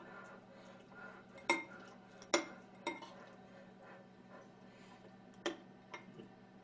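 A metal spoon clinks against a ceramic rice bowl in about five sharp knocks. The loudest come about a second and a half and two and a half seconds in, and two more come near the end.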